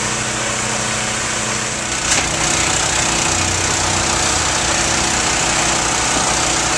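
Truck-mounted cement mixer running steadily, its engine giving an even low pulse, with a single knock about two seconds in.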